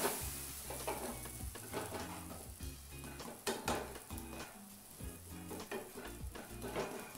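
Moong dosa sizzling as it fries in oil on a flat pan, with a spatula scraping and pressing across it several times.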